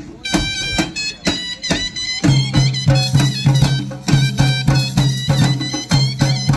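Instrumental Indian folk music: drum strokes about twice a second under a high melody line on a wind or reed instrument, with a low held tone entering a little over two seconds in.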